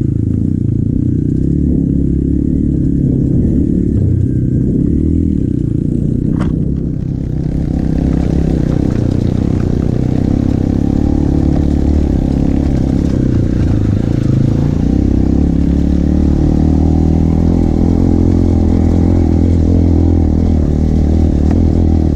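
Motorcycle engine running steadily while the bike is ridden, with a single sharp click about six seconds in and a louder hiss joining from about seven seconds on.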